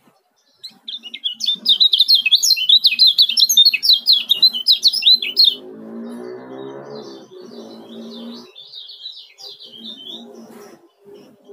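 Lombok kecial kuning (white-eye) singing a loud, very fast, tightly packed chattering 'ciak' song. About halfway through the song drops much quieter, and background music with a low droning tone comes in under it.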